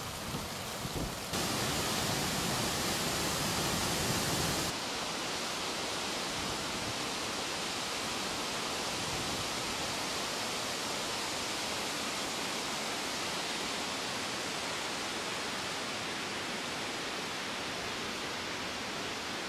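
Steady rushing and hissing of boiling water and steam at a hot spring. The noise changes abruptly about a second in and again near five seconds in, then holds even.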